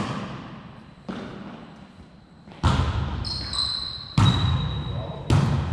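A volleyball being struck during a rally: five sharp hits a second or so apart, each echoing in the gym hall, the later ones louder. A high, steady squeal lasts about two seconds in the middle.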